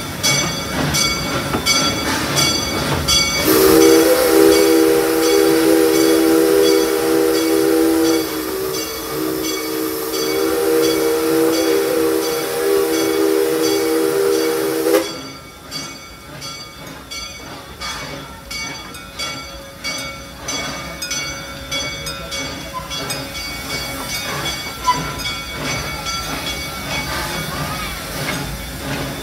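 Small steam locomotive's chime whistle sounding one long blast of several notes at once, starting a few seconds in and cutting off sharply after about eleven seconds. Around it the running train makes a steady rhythmic clatter, with a hiss of steam.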